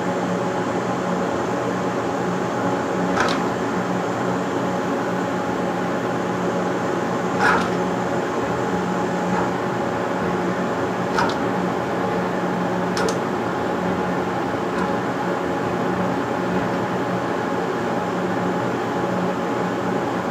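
CNC drawing machine running as it draws with a fountain pen: a steady motor hum of several tones, with a few sharp clicks spaced a few seconds apart.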